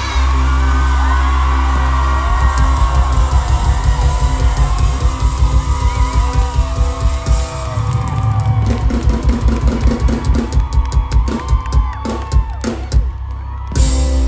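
Live band playing loud closing music with heavy drums and guitar, over a cheering crowd.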